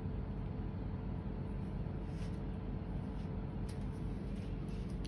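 Steady machine hum, typical of the air-conditioning unit that keeps a saffron grow room at a set cool temperature, with a few faint rustles from handling the dry shoots.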